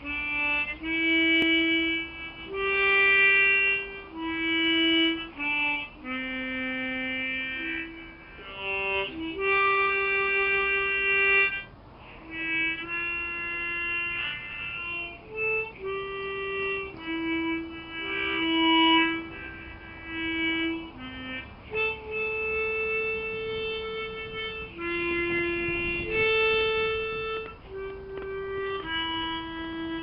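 Solo harmonica improvisation: a slow, free melody of held notes, each lasting about one to two seconds, broken by short pauses between phrases.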